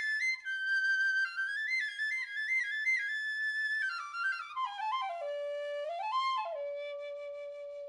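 Wooden Powell piccolo played solo: a melodic phrase in its upper register, then a run stepping down to a low note, a brief rise, and a long held low note that slowly fades.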